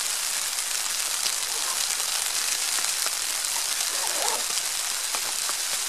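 Rain falling steadily on a tarp shelter overhead, an even hiss.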